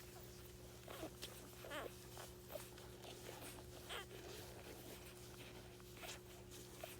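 Newborn wheaten terrier puppies nursing: faint suckling clicks and brief high squeaks, around two seconds in and again about four seconds in, over a steady low hum.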